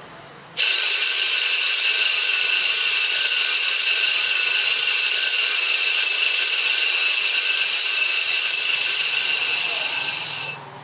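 School bell driven by a Micro Controls SBELL8012 automatic bell controller, ringing loud and unbroken for about ten seconds as a period bell. It starts abruptly about half a second in and dies away just before the end.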